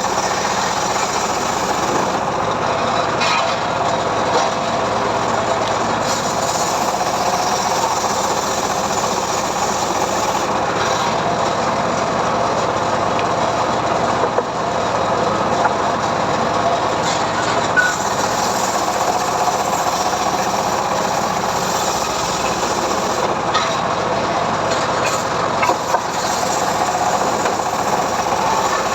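Homemade engine-driven sawmill running steadily as its blade rips through mahogany: a continuous engine-and-cutting noise with a few small knocks.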